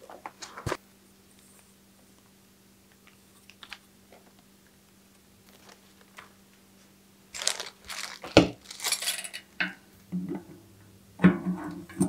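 Metal clinks and rattles of a Microshift Advent X 11-48 bicycle cassette's cogs being handled and fitted onto a rear wheel's freehub. A few sharp clicks come about half a second in, a dense run of clinks from about seven to nine and a half seconds, and more clinks near the end.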